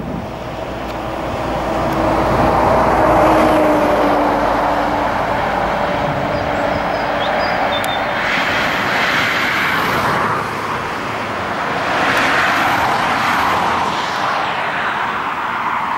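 Road traffic passing on a main road: a vehicle goes by with a low engine drone that falls slightly in pitch, then more vehicles swell past about eight and twelve seconds in.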